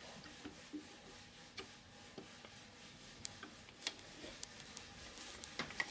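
Scattered light clicks and taps of a chisel and its metal holder being handled and moved on a sharpening grinder's jig; the stone is not running.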